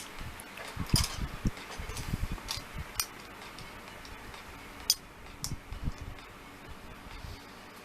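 Plastic model kit parts being handled and sorted: scattered sharp plastic clicks and light taps, with a few soft low thumps.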